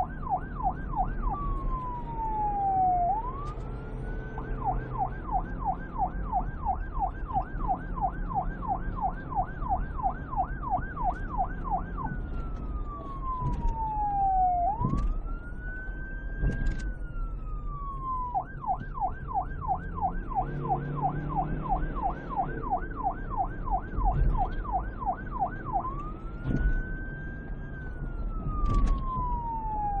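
Police car siren switching between a fast yelp, about three warbles a second, and a slow wail that rises and falls over a couple of seconds, over a low rumble.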